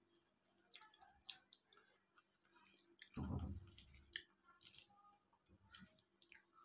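Faint wet chewing and mouth clicks from eating rice and fish by hand, then soft squishing as fingers mix rice on a steel plate. A louder, deeper soft thump comes about three seconds in.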